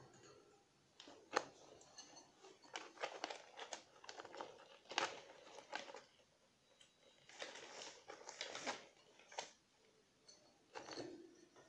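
Degus moving about in their cage, making irregular crunching, rustling and clicking sounds in short bursts with pauses. The sharpest click comes about a second and a half in.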